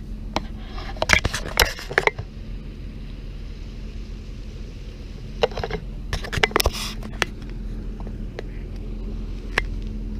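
A boat engine idling as a steady low hum, with clicks, knocks and scrapes from the camera being handled, bunched about a second in and again around six to seven seconds.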